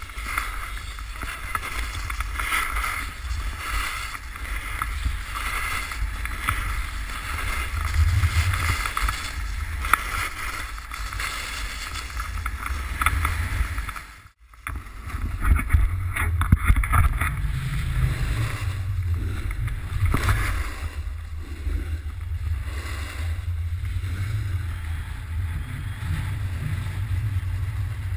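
Wind buffeting an action camera's microphone in a heavy low rumble, over the hissing scrape of a snowboard riding down packed snow. The sound cuts out for a moment about halfway through, then carries on as before.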